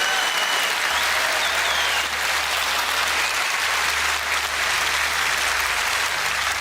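Conference audience applauding steadily.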